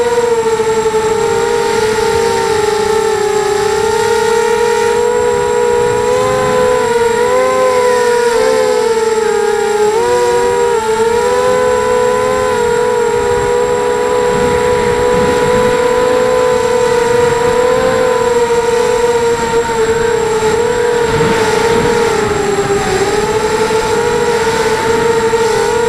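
250-size mini quadcopter's four brushless motors and propellers whining steadily, heard through its onboard camera. The pitch wavers slightly with throttle and dips briefly about ten seconds in and again near the end.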